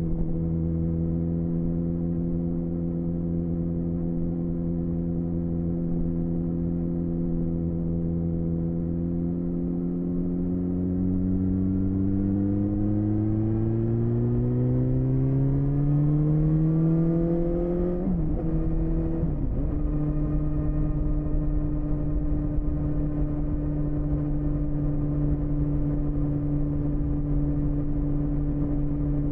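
BMW S1000RR inline-four engine with an Akrapovic Shorty exhaust, heard from the rider's seat. It holds a steady note, then rises in revs for several seconds as the bike accelerates, wobbles briefly about eighteen seconds in, and settles into a steady cruise.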